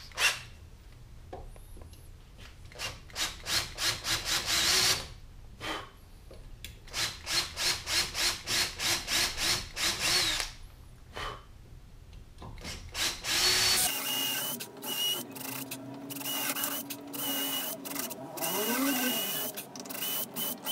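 Cordless drill boring a hole in an aluminium part held in a vise with a 5/32 in (3.97 mm) bit, sizing the hole for tapping a thread. The drill runs in short repeated bursts, then more steadily toward the end.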